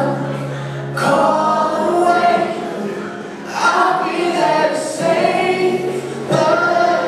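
A choir singing a song over a held accompaniment, phrase after phrase, each phrase swelling and then easing off.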